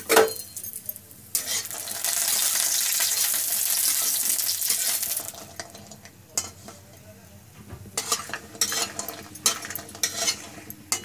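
Badi (sun-dried lentil dumplings) frying in hot oil in a metal kadhai. A clank comes right at the start, then a loud steady sizzle from about one and a half seconds to five seconds in. Later a flat metal spatula scrapes and turns them against the pan in short strokes, increasingly near the end.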